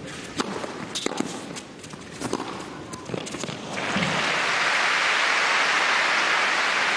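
Tennis rally: sharp racket-on-ball hits roughly every half second to second, then crowd applause that rises about four seconds in and stays steady.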